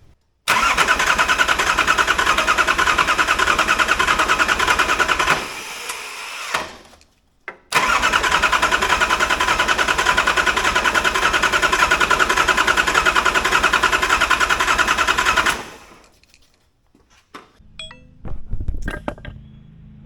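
Nissan RD28 2.8-litre six-cylinder diesel engine turned over on its starter motor in two long cranking bursts of about six and eight seconds, without catching and running.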